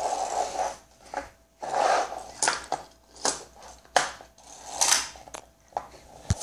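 A small plastic pull-back toy being pulled back and rolled on a wooden table: short bursts of gear whirring and rattling, with scattered plastic clicks and knocks.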